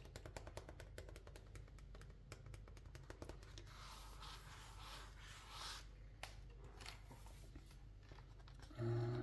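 A sheet of drawing paper being handled: a rapid run of light clicks and taps, then soft rustling of the paper from about four seconds in.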